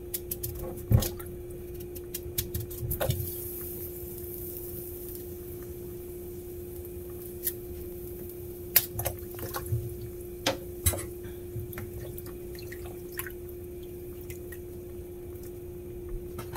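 Scattered light clicks and taps of a knife peeling and cutting pumpkin, over a steady hum.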